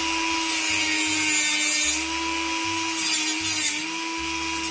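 Dremel rotary tool running at a steady high whine while it trims the ends of reed stems, with hissing bursts of cutting about a third of a second in and again near three seconds.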